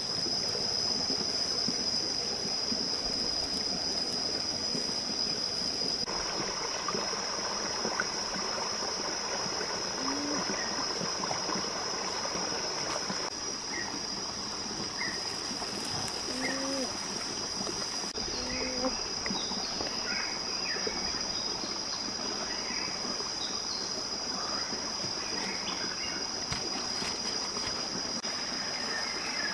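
Forest stream running, a steady rush of flowing water, with a steady high-pitched whine over it and a few short chirps in the middle.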